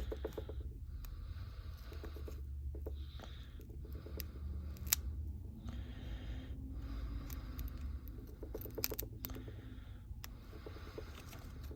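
A sharp tool clicking and scraping at the edge of a Samsung Galaxy S8+'s glass back as it is worked in under the glass: scattered small clicks over a low steady hum.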